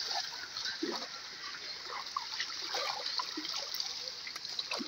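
Shallow river water flowing, with light splashing and trickling as water is scooped up by hand and with a small cup and poured back.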